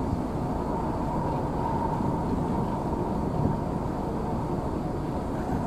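Steady rumble of a large car ferry under way at sea, heard on its open stern deck: engine drone and the rush of the wake, with a faint steady hum above it.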